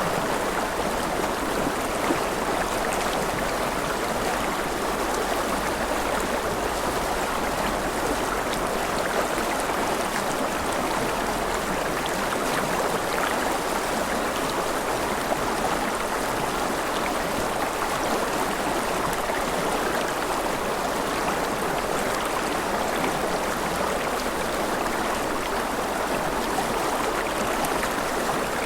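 River water flowing and splashing over rocks, a steady unbroken rush.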